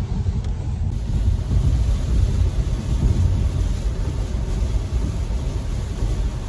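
Steady low rumble of road and tyre noise with a faint hiss, heard inside a Tesla's cabin at highway speed on a rain-soaked road.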